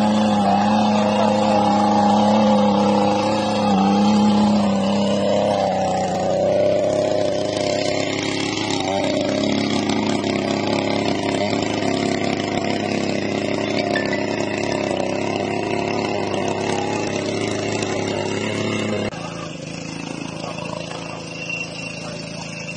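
Small gasoline engine of a mini tiller running under load as its tines churn through wet paddy mud, with a steady note that wavers in pitch during the first few seconds. About 19 seconds in, the sound suddenly drops in level and a quieter run of the same engine continues.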